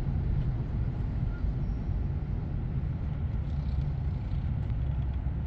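Car engine and exhaust running steadily as the car rolls slowly, heard from inside the cabin as a low rumble.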